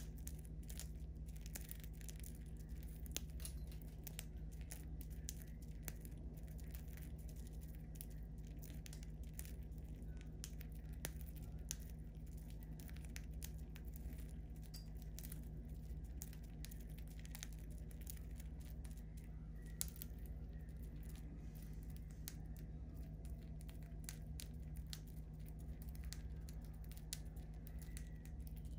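Budgerigar cracking and husking seeds from a hand: a continuous, irregular patter of tiny crisp clicks, faint over a steady low hum.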